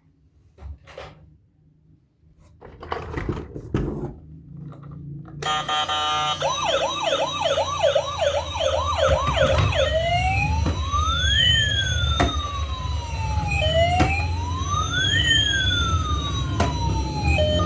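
Light knocks and clicks of handling, then about five seconds in a toy emergency vehicle's electronic siren starts. It gives a fast yelp for a few seconds, then switches to a slower wail rising and falling, over a low rumble.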